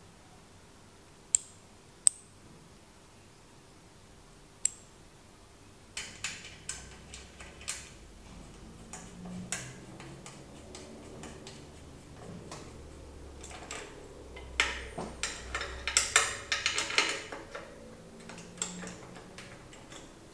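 Metal clicks and rattles of Box Two V-brake arms being handled and fitted to a bike's front fork: three sharp clicks in the first five seconds, then a run of clicking and knocking that is busiest about three-quarters of the way through.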